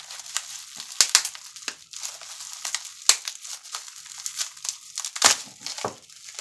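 Plastic bubble wrap crinkling and rustling as it is cut and pulled off a diecast toy car by hand, with a few sharp clicks among it, the loudest a little over five seconds in.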